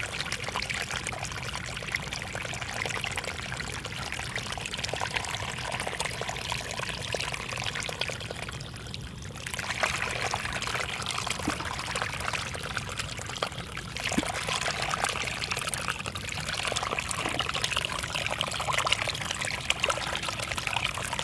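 Water pouring and trickling steadily, as from water running through a flooded rice field.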